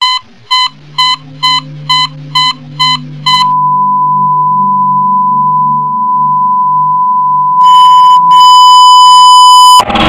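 Television test-card reference tone: eight short high beeps at about two a second, then the same pitch held as one steady tone, joined near the end by a louder higher tone that briefly breaks off and returns. A faint low hum runs underneath, and the tones cut off abruptly as drum-heavy electronic music starts.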